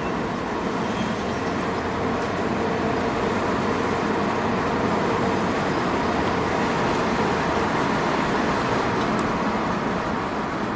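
Inside the cabin of a 2014 Ford Transit Connect with the 1.6-litre EcoBoost four-cylinder, driving under throttle: steady engine and road noise. Turbo boost is fluctuating instead of holding, which is the surging fault under load.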